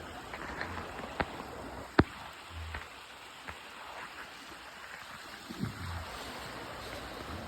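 Small creek flowing with a steady rush of water, broken by a sharp click about one second in and a louder snap about two seconds in, plus a few soft low thuds.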